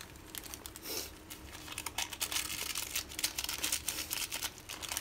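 Sachet of powdered miso soup base crinkling and rustling as it is handled and shaken out over a pot of instant ramen noodles, a rapid run of short crackles.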